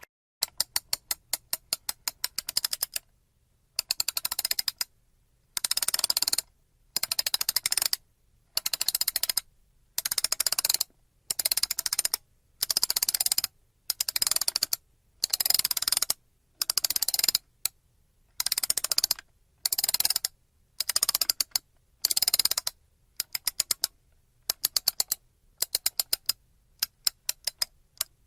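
Wind-up clock being wound: the mainspring ratchet clicks rapidly in repeated strokes of about a second each, with short pauses between them. Near the start and end the clicks come in looser, uneven runs.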